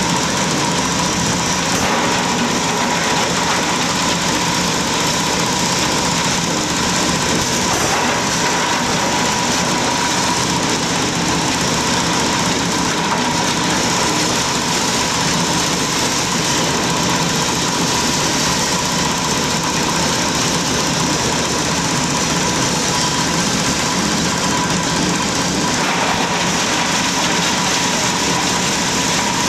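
Multipurpose forage chopper driven by a small stationary engine, running steadily while plant stalks and leaves are fed in and shredded. It makes a loud, continuous mechanical din with a steady high whine throughout.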